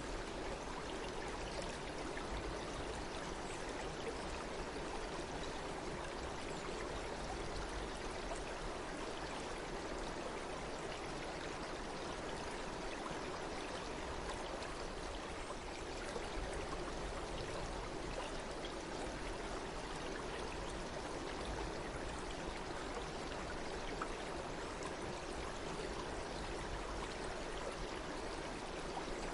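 Stream water flowing steadily, a continuous even rush with no change in level.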